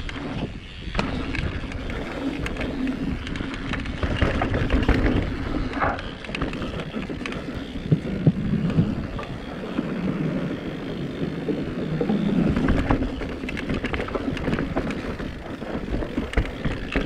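Mountain bike riding over a dirt trail: tyres rolling on dirt and roots, with frequent clicks and rattles from the bike.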